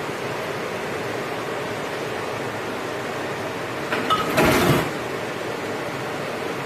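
Steady hiss of a large pan of zucchini cooking on the stove with freshly poured blended tomato, with a short louder noise about four seconds in.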